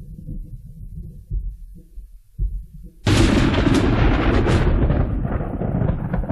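Recorded thunder: a low, broken rumble, then a sudden sharp thunderclap about three seconds in that rolls on loudly.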